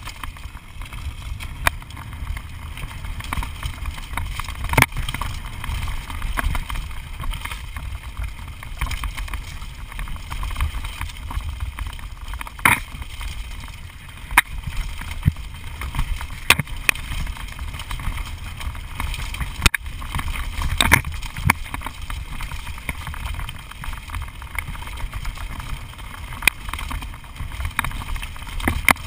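Mountain bike descending rough, rocky singletrack, heard through a bike-mounted GoPro: steady wind noise on the microphone, broken every second or few seconds by sharp clacks and rattles as the bike jolts over rocks.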